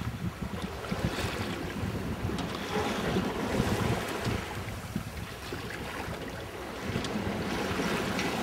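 Wind buffeting the microphone in uneven gusts over the wash of water and waves around a sailboat's hull.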